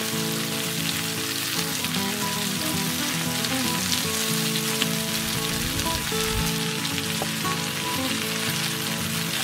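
Potato wedges and sliced bell peppers sizzling and crackling steadily as they fry in a hot black pan and are stirred with a wooden spatula, with background music underneath.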